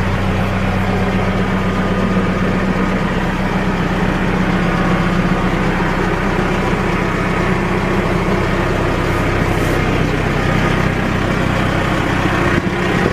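Diesel engine of a 2009 Case 590 Super Series M backhoe idling steadily.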